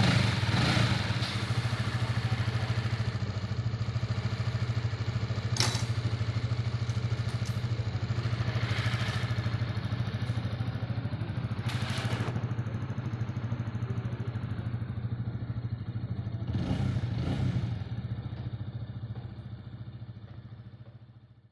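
A Honda Sonic 150R's single-cylinder engine idling steadily with a fast, even putter. There are a couple of sharp clicks, and the engine is briefly louder near the end.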